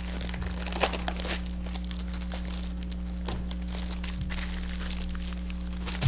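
Plastic shrink wrap crinkling and crackling as it is worked and torn off by hand, in irregular rustles and small snaps, the sharpest about a second in; the wrap is clinging and will not come off easily.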